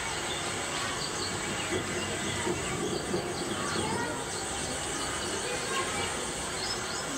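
Scattered high chirps of small birds over a steady hiss.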